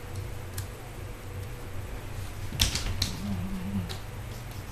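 Sharp clicks and knocks of a cat's claws scrabbling on wooden cupboard doors, the loudest cluster a little past halfway, followed by a short low wavering hum.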